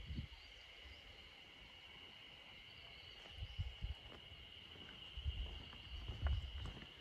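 A steady, high-pitched insect chorus in the summer greenery, with dull thuds of footsteps on the paved road at the start and again in the second half.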